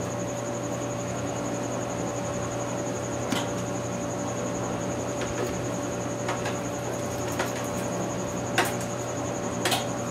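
A few light clicks and taps from handling and seating the engine's main bearing shells, over a steady hum and hiss with a continuous high-pitched trill.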